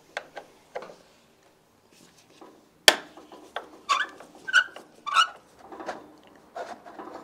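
Hand-tool work on a Vespa GTS300's rear end with a 6 mm Allen key: light metal clicks, one sharp metallic knock about three seconds in, then three short strokes about half a second apart.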